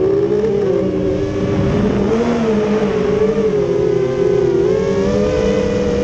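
QAV210 racing quadcopter on a 4S battery, its brushless motors and propellers whining with a pitch that rises and dips as the throttle changes.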